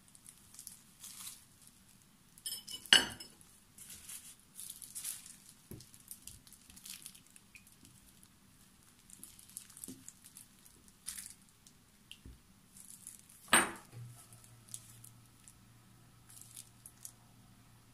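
A wire whisk and then a rubber spatula stirring a chocolate mixture in a glass bowl: soft scraping with light clinks against the glass. Two sharper clinks stand out, one about three seconds in and one about four seconds before the end. A faint steady hum starts in the last few seconds.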